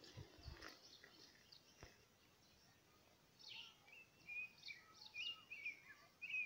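Quiet background with birds chirping: a run of short, high chirps and brief whistles in the second half, over a few faint low thumps before that.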